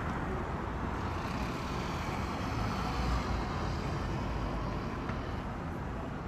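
Jet noise from an Airbus A350-941's Rolls-Royce Trent XWB turbofans on approach with gear down: a steady low rumble with hiss and a faint high whine, easing off slightly near the end as the airliner moves away.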